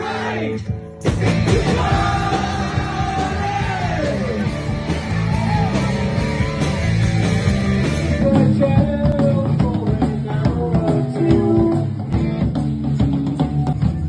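Live rock band playing loudly with a lead singer, heard through a phone's microphone. The sound changes abruptly about a second in and again around eight seconds, as the recording jumps between performances.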